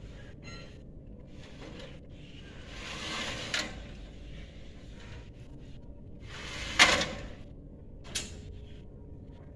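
Two scraping slides that swell and end in a sharp knock, the second the loudest, followed by a lighter knock near the end.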